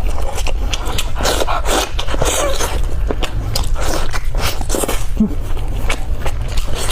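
Close-up gnawing and chewing on a pork leg bone: a quick, irregular run of wet smacks, sucking and small crunchy clicks as meat is pulled off the bone.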